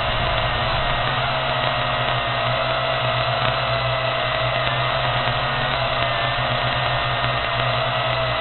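Small quadcopter drone's electric motors and propellers whining steadily in flight, the pitch drifting slightly up and down.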